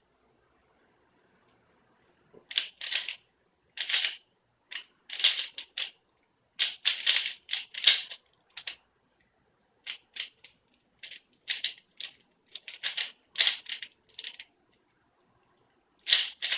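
Rubik's cube being turned fast during a speedsolve: irregular bursts of plastic clicking and clacking as the layers snap round, starting about two seconds in after a quiet pause.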